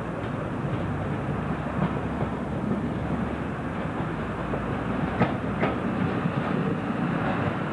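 British Rail slam-door AC electric multiple unit drawing into the platform, its wheels running along the rails. A couple of sharp clicks about five seconds in as it passes over rail joints.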